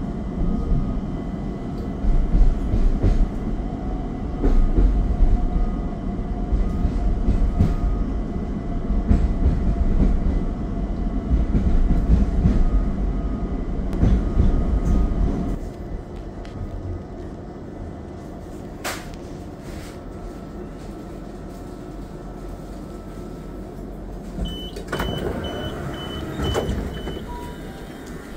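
Class 378 electric train running with a heavy low rumble that drops to a quieter steady hum about halfway through. A single sharp knock follows, then a run of short high beeps near the end.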